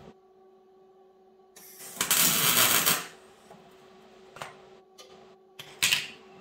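Wire-feed (MIG) welder tack-welding a new steel plate onto a Toyota Tacoma's frame: one weld about a second and a half long, a small click, then a short tack near the end.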